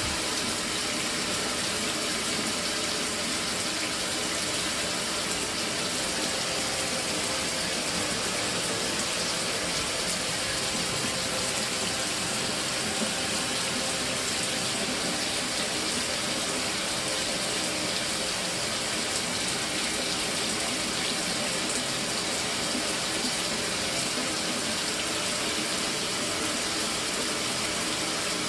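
Mira electric shower running with a steady, unbroken flow of water, not cutting out: the sign that its replaced solenoid valve is now staying open.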